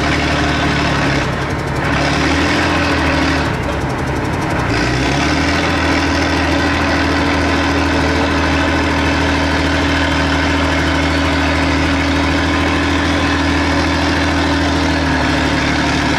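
Heavy diesel truck engine running at a steady speed. Its pitch shifts briefly between about one and five seconds in, then holds even.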